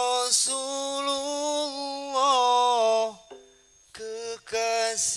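A single voice sings a sholawat melody unaccompanied, holding long notes with small ornamented turns. It breaks off a little after three seconds and comes back about a second later.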